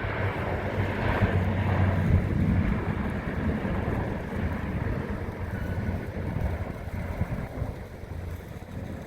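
Airliner's jet roar fading away as it moves off, its low hum dying out about two seconds in and the rushing noise slowly falling, with wind on the phone's microphone.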